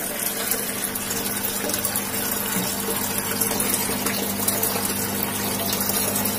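Aquarium pump running: a steady rush of circulating water over a faint low hum.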